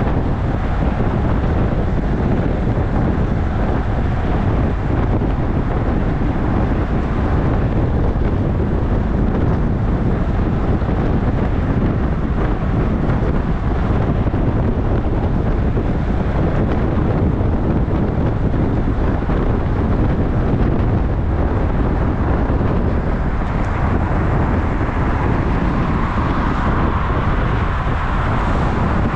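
Wind rushing over a bicycle-mounted camera's microphone at about 45 km/h, a steady loud rush mixed with road and traffic noise. Near the end a car comes alongside and the traffic sound grows.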